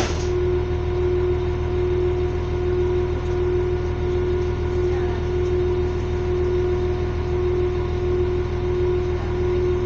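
Standing train humming steadily as its machinery idles: a constant mid-pitched tone over a low, even drone.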